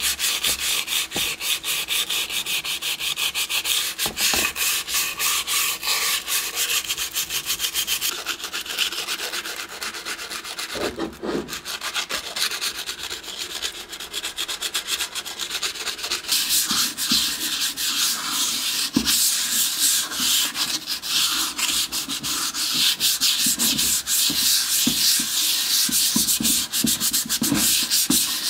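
Steel shell of a WWI German M16 Stahlhelm being sanded by hand with an abrasive sheet. The rapid back-and-forth scratchy strokes run on steadily and ease off for a few seconds about a third of the way in.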